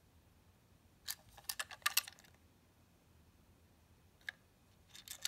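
Light clicks and taps of hard plastic as a Plarail toy Shinkansen car is handled and turned in the hands: a quick run of about eight clicks about a second in, a single click later and a few more near the end.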